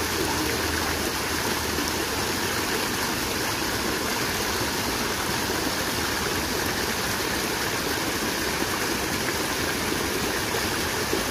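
Small muddy stream rushing and splashing steadily past the bank.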